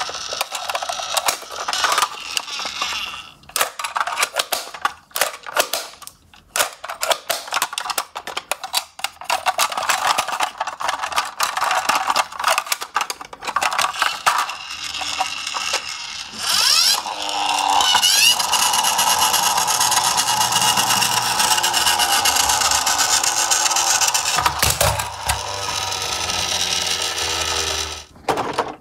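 Hard plastic toy garbage trucks clattering and knocking against each other and the cardboard box as they are picked up and shuffled by hand. A little past halfway a rising whine leads into a steady, dense rasping noise that stops just before the end.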